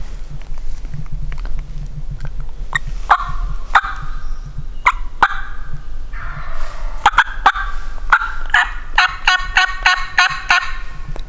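Wild turkeys calling: scattered sharp clucks and short yelps, then a tom's gobble near the end, a fast rattling run of notes.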